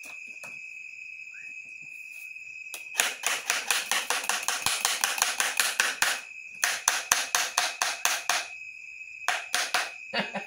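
Quick runs of sharp clicks and knocks, about eight a second, in three bursts, as a perforated PVC pipe is pushed and slid along a suction hose. A steady high-pitched tone sounds underneath.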